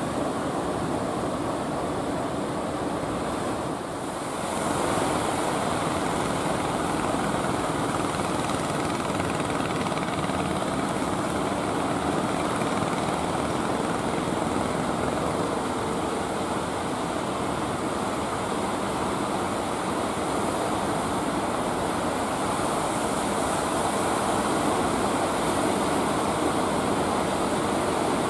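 Fishing boat engines droning steadily, mixed with breaking surf and wind noise. The sound grows a little louder after about four seconds.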